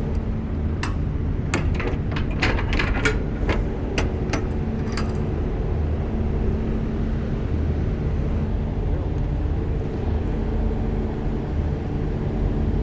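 Semi truck's diesel engine running steadily, with a quick cluster of sharp clicks and rattles in the first few seconds.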